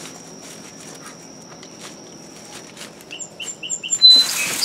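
A bird gives four quick chirps about three seconds in, over a steady high-pitched whine and faint taps. Near the end comes a loud rustle of dry garlic stalks and newspaper being handled.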